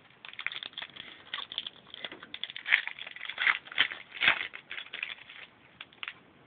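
A trading-card pack wrapper being torn open and crinkled, with the cards inside slid out and shuffled in the hands: a run of irregular crackles and crisp clicks, busiest in the middle and stopping near the end.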